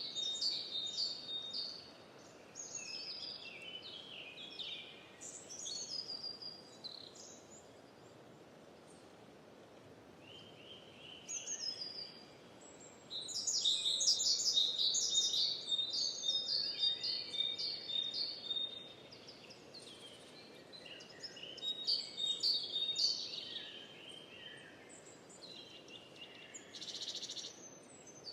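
Songbirds chirping and trilling in bouts of quick, repeated notes over a faint steady background hiss, busiest about halfway through.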